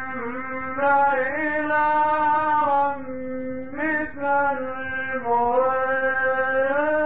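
A male Quran reciter chanting melodically in tajweed style, holding long ornamented notes that bend up slightly between short breaths.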